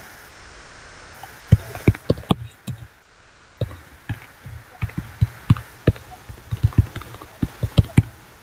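An irregular series of sharp knocks and taps, some in quick clusters, starting about a second and a half in.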